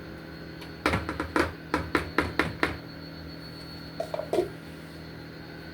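A quick run of about eight light clicks and knocks, a measuring spoon clinking against the rim of a mixing bowl as melted butter is added to dumpling batter, followed by a brief pitched sound.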